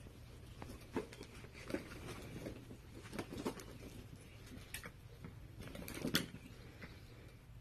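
Dachshunds handling their new toys and box: scattered light taps and rustles. The louder ones come about a second in, near two seconds, around three and a half seconds, and about six seconds in.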